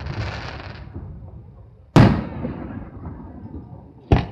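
Aerial fireworks going off: a brief hiss at the start, then two sharp booms about two seconds apart, each trailing off in a long rumble.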